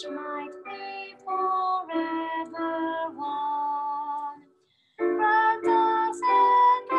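A woman singing a slow hymn over sustained keyboard accompaniment, held notes moving phrase by phrase. The music stops for a moment about four and a half seconds in, then picks up again.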